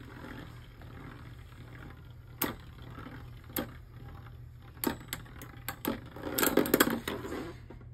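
Two metal-wheeled Beyblade spinning tops whirring inside a clear bowl stadium, with sharp clacks every second or so as they strike each other. Near the end comes a quick run of loud, rattling clashes.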